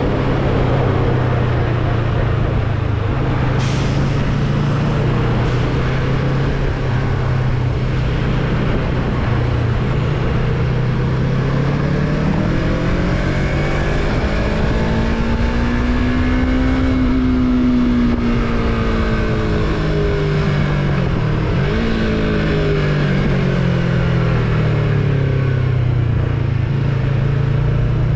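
Yamaha MT-03 motorcycle engine under way: the engine note holds steady, then rises smoothly for several seconds as the bike accelerates and falls back as it slows, over constant wind and road noise.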